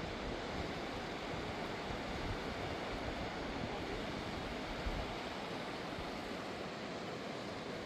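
A fast mountain river rushing steadily, a constant, even roar of water.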